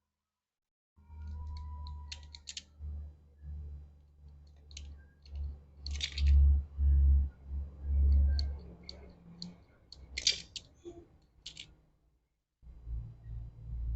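Irregular small clicks and rustles of hands handling wires and connectors while connecting a replacement refrigerator fan, over uneven low rumbling bumps.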